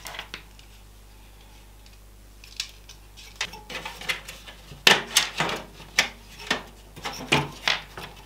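Quiet at first, then from about two and a half seconds in a run of small sharp clicks and taps, the loudest about five seconds in. These are the sounds of screws, a screwdriver and a fan-fitted AIO radiator being handled and shifted inside a PC case.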